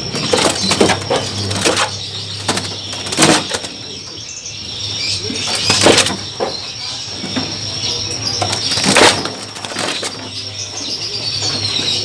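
Caged birds fluttering and beating their wings against the cage bars in short, loud bursts, several times over, with a steady high-pitched tone in the background.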